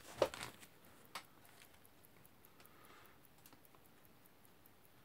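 Brief handling sounds as a watch case is picked up in gloved hands: a couple of short knocks and rustles in the first second or so, then quiet room tone.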